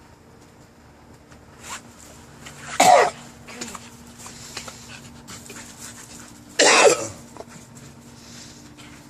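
A dog gagging: two loud, dry retching hacks about four seconds apart, each falling in pitch, bringing nothing up.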